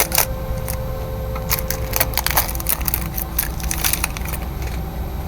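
Trading cards and their foil packaging being handled: irregular bursts of crinkling and clicking, in a few clusters, over a steady low hum.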